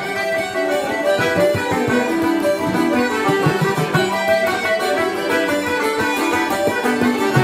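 Irish traditional session music: banjo, button accordion, uilleann pipes and bouzouki playing a tune together, with a bodhrán beating the rhythm close by.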